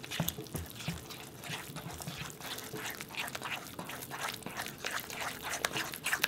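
Wooden spoon stirring thick flour-and-soybean-paste pancake batter in a stainless steel bowl: a quick, irregular run of wet slaps and scrapes against the metal.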